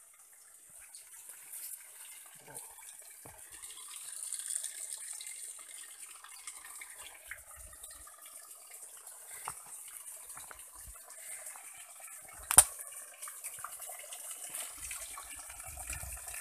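Spring water running from a pipe and splashing onto rocks, faint at first and nearer toward the end, with footsteps along a dirt path through foliage. One sharp knock about three quarters of the way through is the loudest sound.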